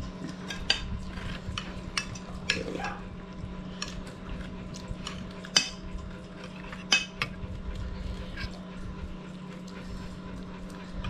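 Metal spoons clinking and scraping against china plates as rice is scooped up, in scattered sharp clicks with the sharpest about halfway through, over a steady low hum.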